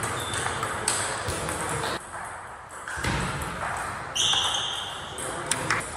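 Table tennis rally: the ball ticking sharply off the bats and the table, a few separate hits, with a brief high squeak about four seconds in.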